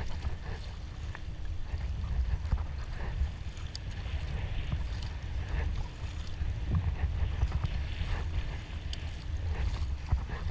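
Sea kayak under way: paddle blades dipping with short irregular splashes, water washing along the hull, and a steady low wind rumble on the microphone.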